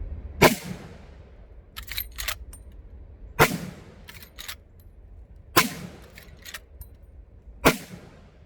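Marlin 1895 SBL .45-70 lever-action rifle fired four times, about two seconds apart, each shot a sharp crack with a short echoing tail. Between shots the lever is worked, giving quick metallic clicks.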